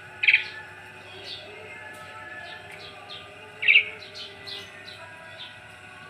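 Caged Javan pied starling (jalak suren) giving two short loud calls, the first right at the start and the second more than three seconds later, with fainter high chirps in between.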